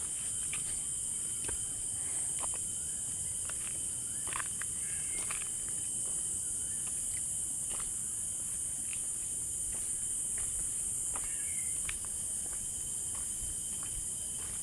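Steady, high-pitched chorus of insects in a forest, a continuous shrill buzz, with scattered light clicks and crackles throughout.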